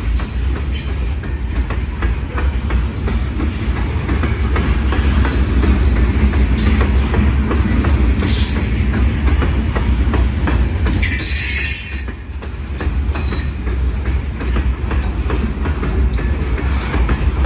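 Freight train of CSX open-top hopper cars rolling past close by: a steady low rumble of wheels on rail with rapid clicking over the joints. Brief high-pitched wheel squeals come about eight and eleven seconds in.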